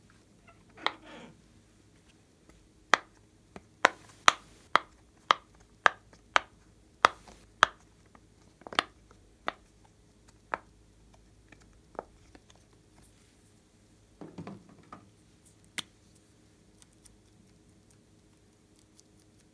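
Bubbles of a silicone pop-it fidget toy being pressed, a run of about a dozen sharp pops, roughly two a second, with a few more spaced out later. Softer squishy handling sounds come about a second in and again near 14 seconds.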